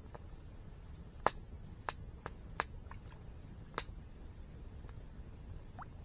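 Wood campfire crackling: about half a dozen sharp, separate pops over a low steady background rush.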